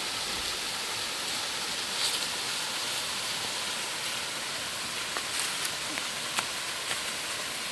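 Small waterfall splashing steadily into a rock pool: an even rushing hiss of falling water, broken by a few short sharp clicks in the second half.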